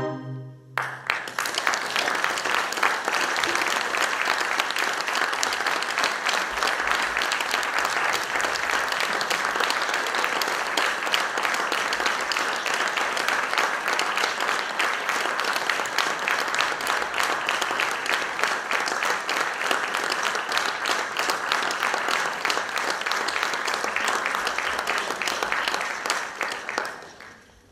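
Audience applauding steadily for about 25 seconds, dying away near the end. The last chord of a string quartet stops just at the start.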